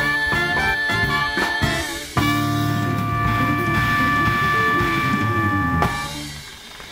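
Swing band with horns, guitars, bass and drums playing the closing bars of a song, then a sustained final chord for about three and a half seconds, cut off together near the end with a short ring-out.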